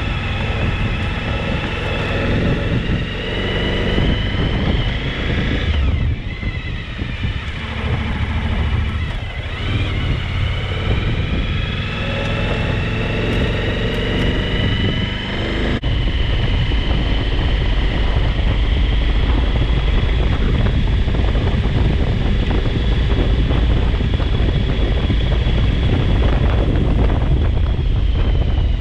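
Suzuki V-Strom 1000's V-twin engine as the motorcycle is ridden off: engine pitch drops and climbs again a couple of times in the first half, as with gear changes, then settles into a steady cruise with heavy wind noise on the microphone.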